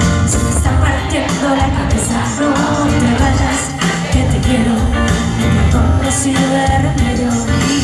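Live pop band playing loudly on stage: women's voices singing into microphones over drums and bass guitar.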